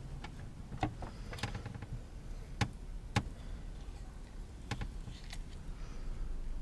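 A few light, scattered clicks and knocks, about six of them, over a low steady hum.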